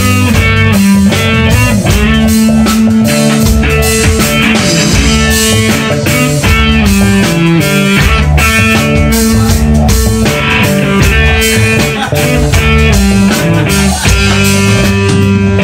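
Live amplified rock band playing: electric guitars and bass over a steady drum-kit beat, loud.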